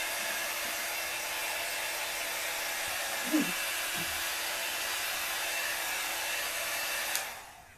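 Heat gun blowing steadily over wet acrylic paint to pop air bubbles, a rushing airflow with a steady motor hum under it; it is switched off near the end and the noise dies away.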